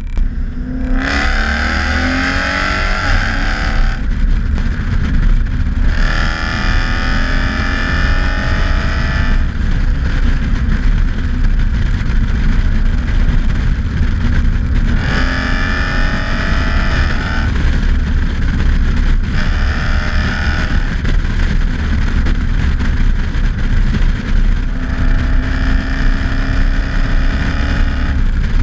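Toyota 1UZ V8 and its gearbox under way: a steady low rumble, with a whine that rises in pitch in five separate stretches as the car pulls, each cut off and followed by the rumble alone.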